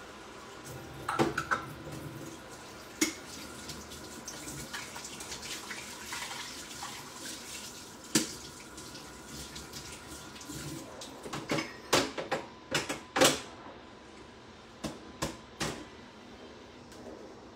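Water running from a kitchen tap, with scattered sharp clicks and knocks of kitchen things being handled, several of them close together in the second half.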